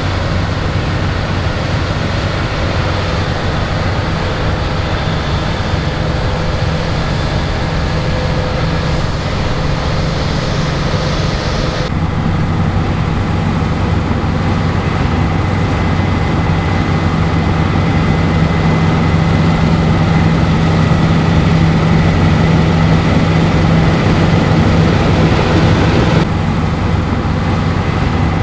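Claas Lexion 8900 combine harvester running steadily while harvesting wheat: a deep, even engine drone with a faint steady high whine. The sound changes abruptly twice, about twelve seconds in and near the end.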